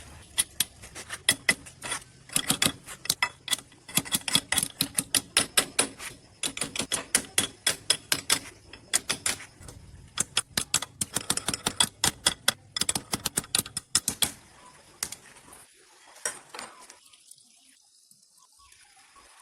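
A rapid, irregular series of sharp taps, several a second, stopping about fourteen seconds in.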